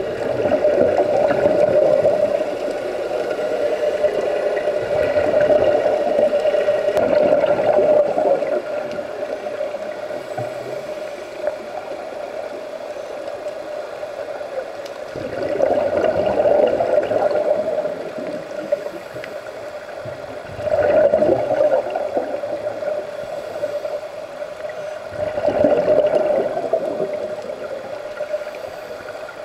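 Scuba divers' exhaled air bubbling out of their regulators, heard underwater, swelling in surges every several seconds with each breath.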